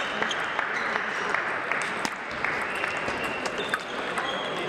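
Hall ambience of a busy table tennis venue: a steady din of many overlapping clicks from table tennis balls striking tables and bats in the surrounding matches.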